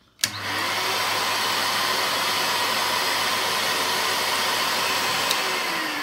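Toshiba VCP-700S tub vacuum cleaner switched on with a click, its motor quickly spinning up to a steady, loud rushing run. About five seconds in, a second click switches it off and the motor starts winding down, its pitch falling.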